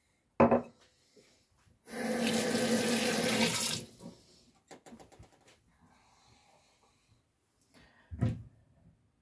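Kitchen tap run for about two seconds, water pouring into the sink. A sharp knock comes just before it, and a duller thud near the end.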